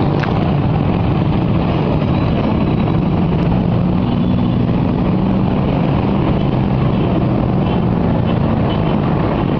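Vehicle engine running steadily under loud road noise, with a low engine hum throughout.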